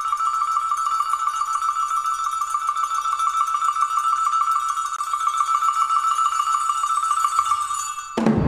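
A single high metallic bell note held by a rapid, even roll on one pitch. Near the end it stops abruptly and drums come in loudly.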